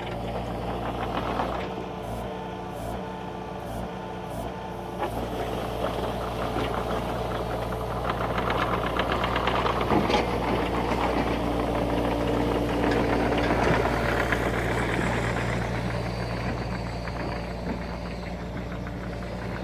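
Excavator's diesel engine running steadily, louder through the middle stretch as it works under load. There is a sharp knock about halfway through.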